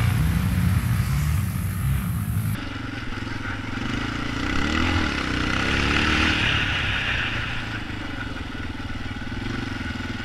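ATV engine running at race pace. The sound changes abruptly about two and a half seconds in, and the engine revs up and back down around the middle.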